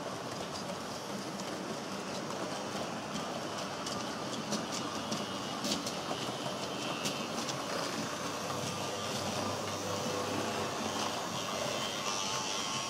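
HO-scale model freight train of car-carrier wagons rolling past on the track: a steady rolling rattle of the wagon wheels on the rails, with scattered sharp clicks.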